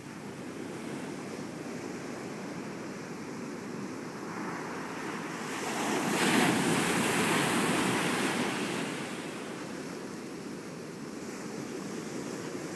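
Ocean surf: a wave breaks and washes over a sandbar, swelling to its loudest about six seconds in and fading over the next few seconds, over a steady wash of surf.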